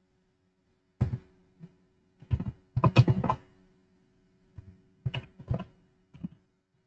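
Keystrokes on a computer keyboard typing a phone number, in short irregular clusters with the busiest run about three seconds in, and a faint low hum that comes in only with the keystrokes.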